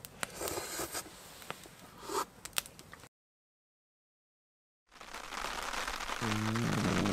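Faint scattered clicks, scrapes and rustles. After a brief cut to silence, rain falls steadily in a dense hiss. Near the end a low hum that changes pitch in steps comes in over the rain.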